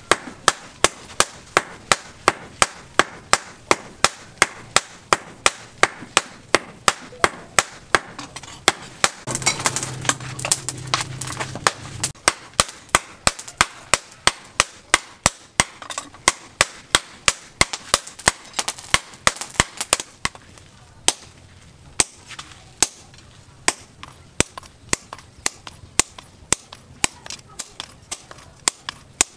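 Hand-hammer blows on red-hot steel held on a small post anvil: sharp, ringing strikes in a steady rhythm of about two to three a second, as the bar is forged flat.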